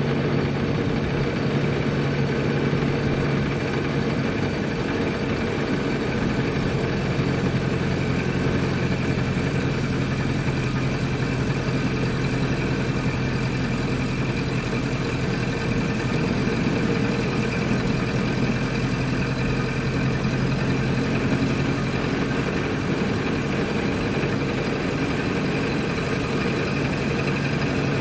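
Ford Model A's four-cylinder flathead engine running steadily as the car is driven: an even, low drone with only slight shifts in pitch and no sharp revving.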